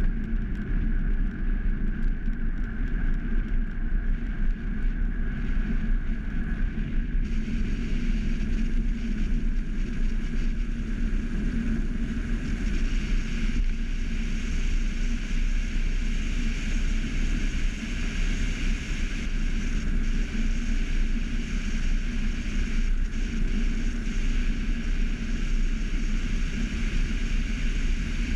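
Steady rushing wind and road rumble of a velomobile rolling along at speed, heard from a camera mounted on its body, with a deep rumble and a hiss that grows about seven seconds in.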